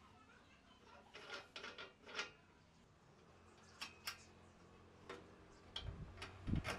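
Scattered clicks and knocks of a square wooden blank being handled and seated between the metal centres of a small wood lathe: a run of light knocks, two sharp clicks about four seconds in, and a few clicks with two dull thumps near the end.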